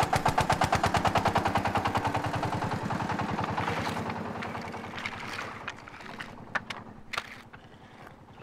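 A small farm tractor's diesel engine chugging in rapid, even beats that fade away over the first half as it pulls off. After that come scattered sharp clacks of pilgrims' hands and boards striking the road as they prostrate.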